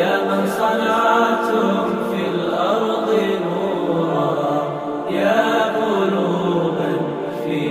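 Background music: a chant-like Arabic song sung by a group of voices, holding long notes.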